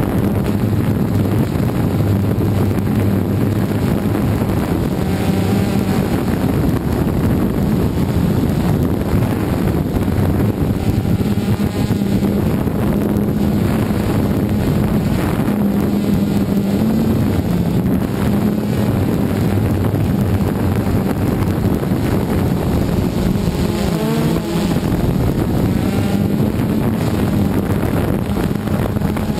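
DJI Phantom 2 quadcopter's electric motors and propellers running in flight, heard up close from the GoPro mounted on it: a loud, steady buzzing hum whose pitch wavers as the motors change speed, dipping briefly near the end.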